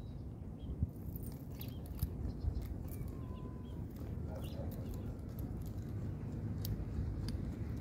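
Metal links of a prong training collar clicking and clinking in quick, irregular ticks as it is fastened around a dog's neck, over a low steady rumble.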